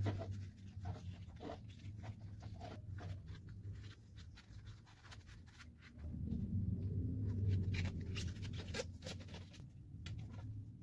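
Rubber bicycle inner tube being handled and worked over a chrome metal tube: irregular rubbing, scraping and small clicks, over a low steady hum.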